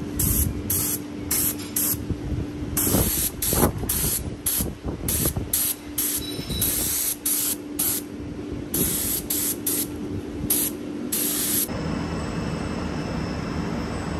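Compressed-air gravity-feed spray gun spraying black paint in many short bursts of hiss, each trigger pull lasting under a second. Near the end the spraying stops and a steady hum takes over.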